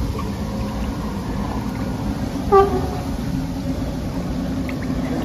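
A short horn toot, about half a second long and falling slightly in pitch, about halfway through, over a steady low rumble and wind noise.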